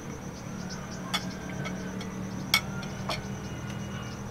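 A few sharp clinks of a metal spoon and a plate, the plate set down on a wooden table, three distinct taps with the second the loudest, over a steady low hum.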